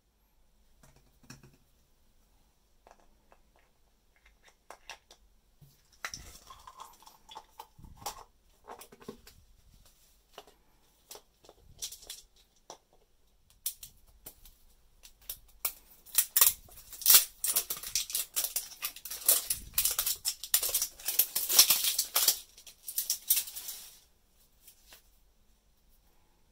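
Light clicks and taps of hollow plastic capsule halves being handled, then crinkly plastic wrapping crackling loudly as it is peeled off a small ball, densest in the second half and stopping shortly before the end.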